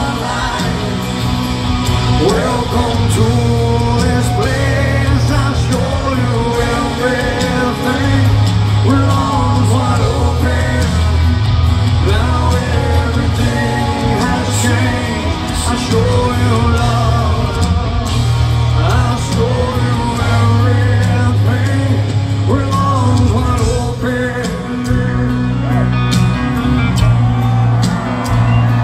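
Live rock band playing loud in an arena: electric guitars, drums, heavy bass and a male lead vocal, heard from among the crowd.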